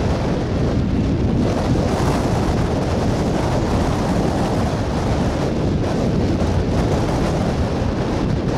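Railroad tank cars of a freight train rolling past, a steady low rumble of wheels on rail.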